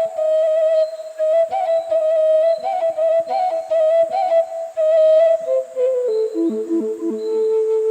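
Romanian caval (long end-blown shepherd's flute) playing a slow doina lament. The melody moves in the middle register with quick repeated ornamental flicks, then steps down to lower, darker notes about two thirds of the way in.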